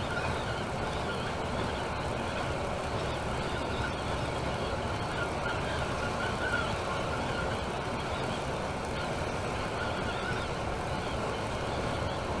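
Temsa Maraton intercity coach cruising on a motorway, heard from inside the passenger cabin: a steady, even mix of engine and tyre road noise.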